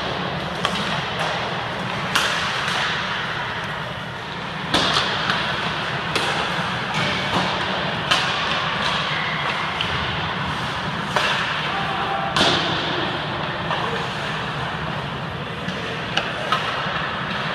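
Ice hockey practice: irregular sharp cracks of sticks hitting pucks and pucks striking the boards and goal, about a dozen in all, two of them loudest (about 5 and 12 seconds in), each with a short echo in the arena, over a steady background of rink noise.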